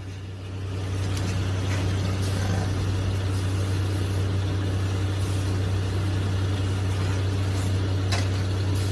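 A steady low mechanical hum that runs unchanged, with a faint background hiss.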